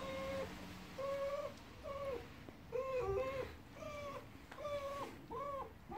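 A dog whining: a string of about eight short, meow-like cries, each under half a second and arching up and back down in pitch, coming one to two a second.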